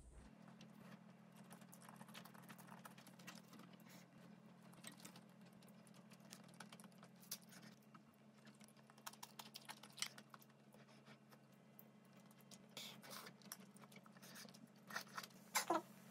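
Near silence: faint, scattered small clicks and taps over a low steady hum, with a few louder clicks near the end.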